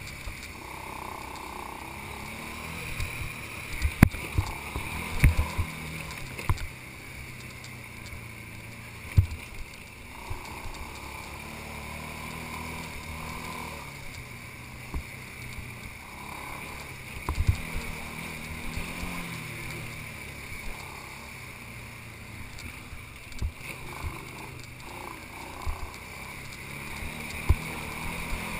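ATV engine running along a rough dirt trail, its pitch rising and falling with the throttle. Several sharp knocks come as the machine jolts over bumps, the loudest about 4, 9 and 17 seconds in.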